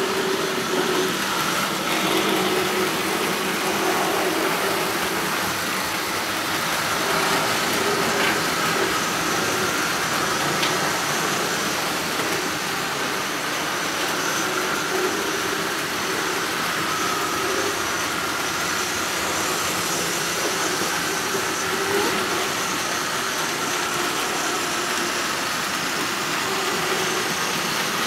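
00 gauge model trains running along the layout: a steady hum from the locomotive motors over the rumble of wheels on the track, with a few faint clicks.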